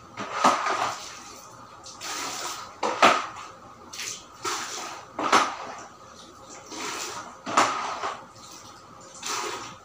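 Floor-cleaning strokes on a tiled floor, about one every two seconds, each a scraping swish with a sharp clack.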